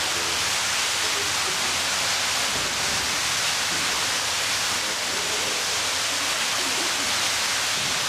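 Steady rushing hiss, with a low murmur of onlookers' voices underneath.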